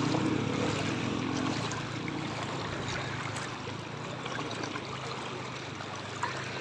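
Floodwater sloshing and swishing around legs as people wade knee-deep through a flooded street.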